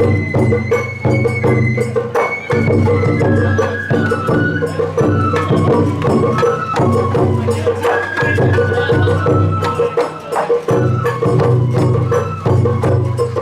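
Sawara-bayashi festival music: a bamboo flute playing a stepping melody over drums and struck percussion.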